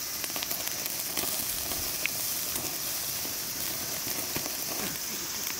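A thin slice of pork sizzling steadily on a wire grill over glowing charcoal, with many small crackles and pops from the fat.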